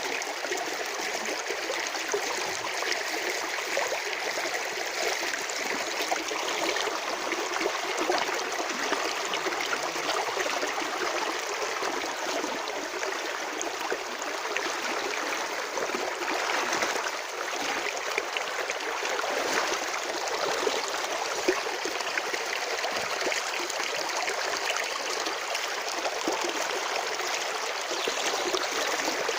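Stream of water running and trickling over stones, with many small splashes and gurgles.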